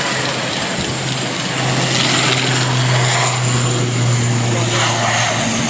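Airliner engines running loud and steady close by, a dense rush with a low hum under it that strengthens about two seconds in.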